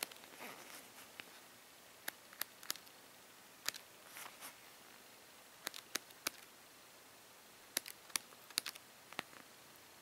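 Sheets of a patterned scrapbooking paper pad being turned one by one: faint, scattered paper clicks and soft rustles, several coming in quick groups of two or three.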